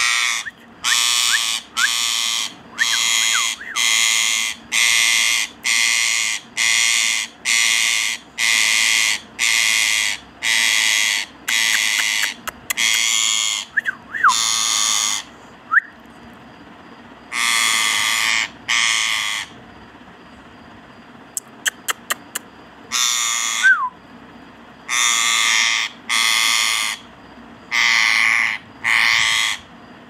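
Indian ringneck parakeet screeching: a long run of harsh, rasping calls about one a second. They break off for a few seconds about two-thirds of the way through, when only a few sharp clicks are heard, then resume.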